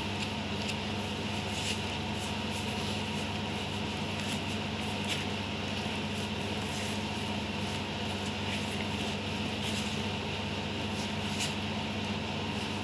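A steady mechanical hum runs throughout, with scattered faint soft scrapes and taps of a spatula folding thick muffin batter in a plastic bowl.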